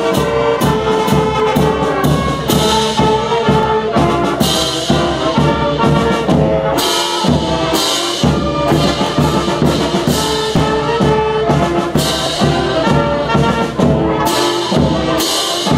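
Concert band playing live: trumpets and other brass lead with clarinets and flute, over a steady percussion beat.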